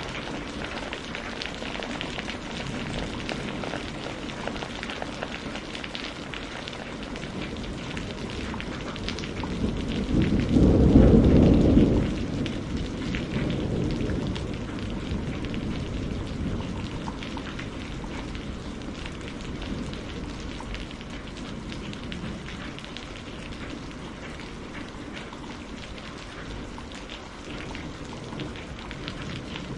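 Steady rain falling, with a low rumble of thunder about ten seconds in that lasts around two seconds and is the loudest sound.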